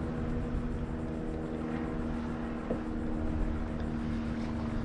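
A steady engine drone holding one even pitch, with a low rumble beneath it.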